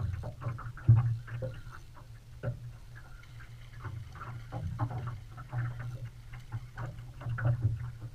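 Spinning reel being cranked against a fish on a hard-bent rod: a run of irregular clicks and ticks from the reel and rod handling, over a steady low hum.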